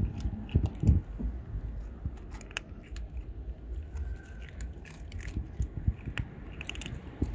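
Cats crunching dry kibble from plastic plates: a run of irregular crisp crunches and clicks, with a few low thuds in the first second.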